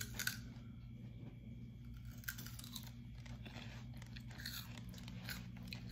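A raw celery stick being bitten and chewed, with crisp crunches scattered through the chewing, over a steady low hum.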